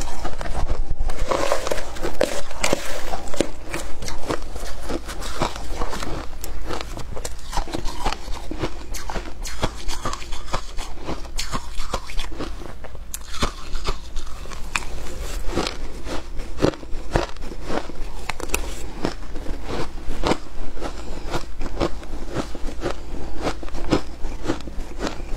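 Close-up chewing and crunching of a mouthful of shaved ice, a steady stream of crisp, irregular crunches.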